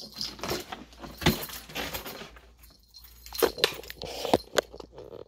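Keys jangling and clinking, mixed with rustling and a few sharp knocks as a heavy bag is picked up and carried.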